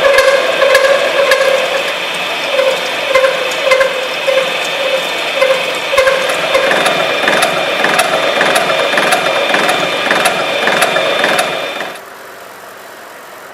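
Knuth UWF 4 universal milling machine running, with a whine that pulses about twice a second and fine ticking over it, typical of a cutter working metal. About twelve seconds in the sound drops away suddenly to a faint steady hum.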